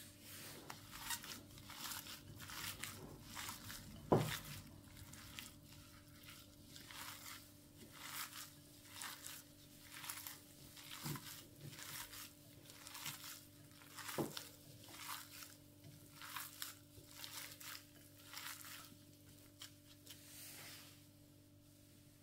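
Gloved hand kneading raw ground meat with spices and chopped onion in a glass bowl: a steady run of wet squishing and crinkling, roughly one squeeze every half second to second. Two sharp knocks stand out, one about four seconds in and another past the middle.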